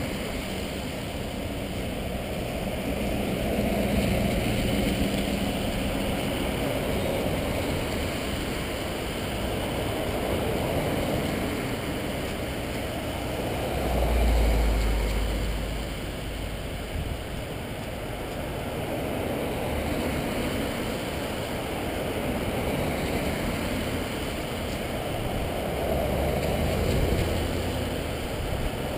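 Procession vehicles passing one after another, engine and tyre noise swelling and fading as each goes by. A heavier low rumble swells about halfway through and again near the end.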